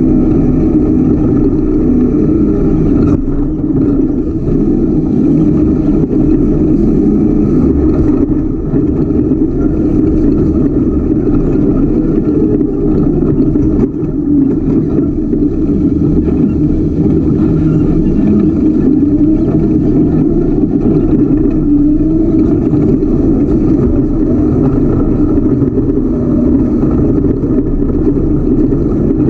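Ultra4 off-road race car's engine running loud and steady under way, heard from on board, the note dipping and picking up slightly with the throttle a few times.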